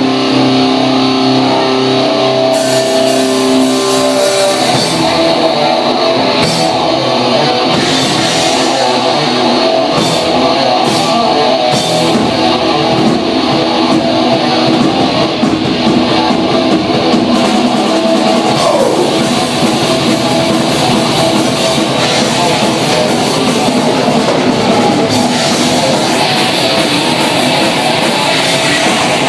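Heavy metal band playing live: electric guitars and drum kit, loud and dense. Held guitar notes ring for the first few seconds, then the full band plays on.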